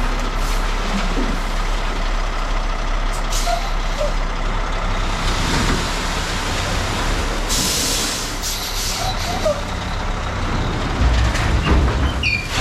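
Diesel dump truck running steadily, with a sharp air-brake hiss about seven and a half seconds in.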